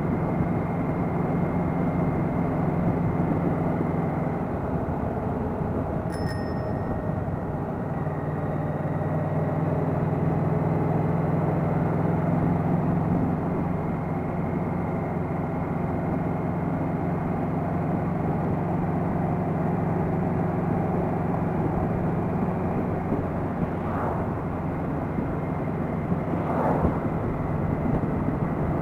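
Yamaha Venture touring motorcycle's V4 engine running steadily at road speed through its stock mufflers, with road and wind noise. The engine note eases off for a few seconds about four seconds in, then picks up again.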